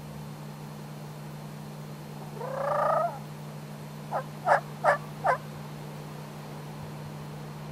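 A wild turkey gobbler gobbling once, a rolling, rattling call of under a second. Soon after come four short, sharp turkey calls in an even series.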